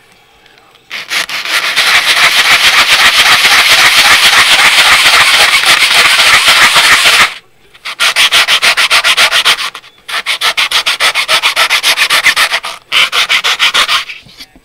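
Plastic model-kit wall rubbed back and forth on a sheet of sandpaper laid flat, sanding it level: quick scraping strokes, several a second, in four bouts with short pauses between.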